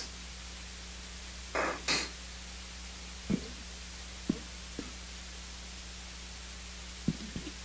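Steady hiss and low electrical hum of an open microphone line. There are two short noisy bursts a little under two seconds in and several faint clicks scattered after them.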